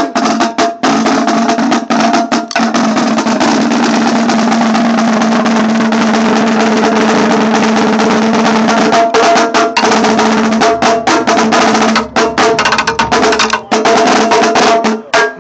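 Marching percussion drums played loud and fast, with a dense snare roll for most of it that breaks into separate, more spaced strokes from about nine seconds in, stopping just before the end.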